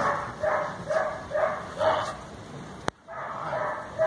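A dog barking in a quick series of short, high barks, about two a second. The barking breaks off with a sharp click about three seconds in and starts again just after.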